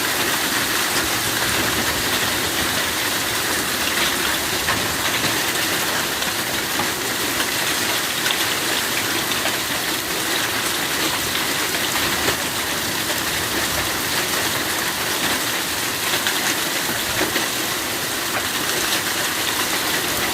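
Small hailstones pelting down hard and steadily, a dense crackling patter of many tiny impacts.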